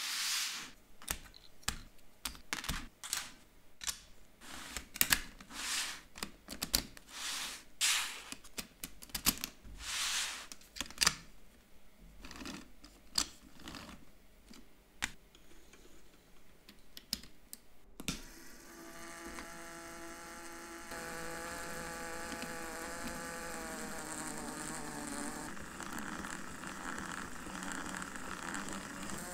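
Plastic Lego Technic parts clicking and knocking sharply as they are handled and fitted, a quick irregular series of snaps. About eighteen seconds in, a Lego electric motor starts whirring steadily, driving the pencil sharpener as it shaves the pencil.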